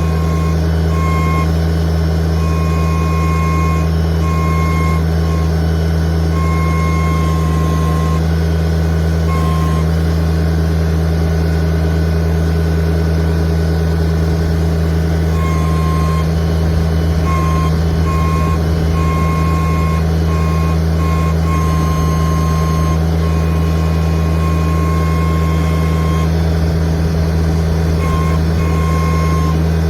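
Tractor engine running steadily while the backhoe is worked, with a high tone that switches on and off in short, irregular stretches through most of the clip.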